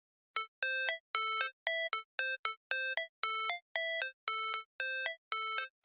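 Electronic music: a quick run of short synthesizer notes, two to three a second, stepping between two pitches.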